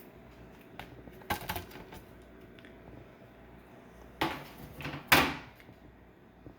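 Plastic laptop casing handled on a work surface as it is shut and flipped over: a few light clicks, then two louder clunks about four and five seconds in, the second the loudest.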